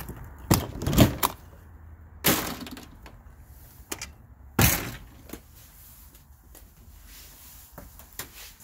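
Travel trailer entry door being unlatched and pulled open: a series of sharp latch clicks and clunks, loudest about a second in, then a couple of longer rattling knocks as someone climbs the step into the trailer.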